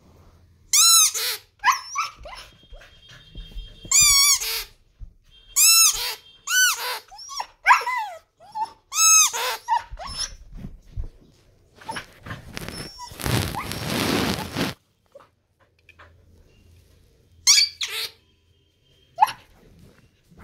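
Siberian husky "singing": about ten short, high-pitched woo calls, each rising and falling in pitch, in a run over the first ten seconds and two more near the end. A burst of noise lasting about two seconds falls between the runs.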